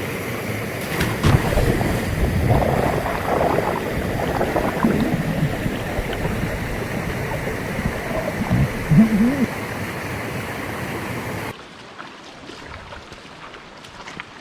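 Rushing stream water, with a few brief louder sounds over it. It cuts off abruptly about three-quarters of the way through to a much quieter background.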